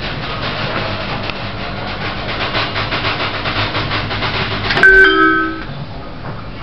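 Hydraulic lift's pump unit running with a steady hum and a rapid pulsing, then a sharp click and a short electronic chime about five seconds in.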